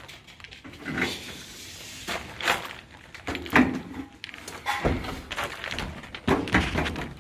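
A 50 mm AAC (autoclaved aerated concrete) wall panel being manhandled into place against the battens: a string of irregular knocks, thuds and scrapes as it is set down and pushed against the wall.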